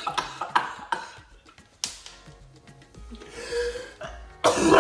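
Background music under scattered clicks and taps, with a sudden loud vocal outburst near the end.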